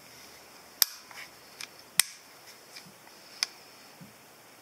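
Sharp mechanical clicks from the plastic trigger group of a Benjamin Wildfire .177 PCP air rifle as it is worked by hand: three loud clicks a little over a second apart, with a few fainter ticks between.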